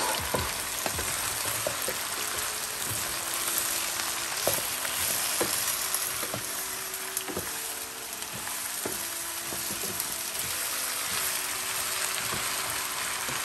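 Diced vegetables sizzling as they sauté in a pan on maximum heat, with a steady hiss. A wooden spoon stirs them, knocking now and then against the pan.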